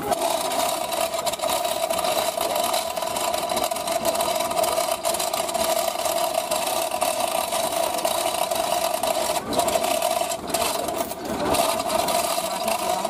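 Recovery tow truck's engine running steadily at raised revs to work its winch, with a high steady whine over the engine noise.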